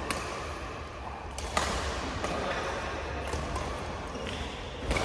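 Badminton rackets striking a shuttlecock in a rally: a few sharp cracks, the loudest about a second and a half in, over the steady background of a sports hall.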